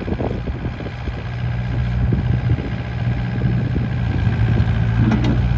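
IHI 65NX excavator's Yanmar diesel engine running steadily, a low even hum that grows a little louder about a second in.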